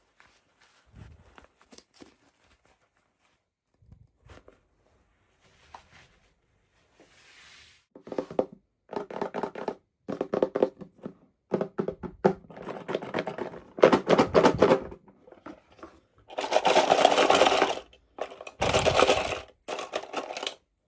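Toy doll packaging being opened by hand: faint taps and knocks at first, then repeated loud bursts of crinkling, tearing and scraping of plastic and cardboard from about eight seconds in.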